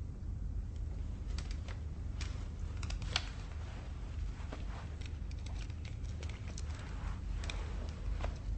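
A steady low rumble of room tone, with many small scattered clicks and rustles, as of handling and shifting in a quiet room, starting about a second and a half in.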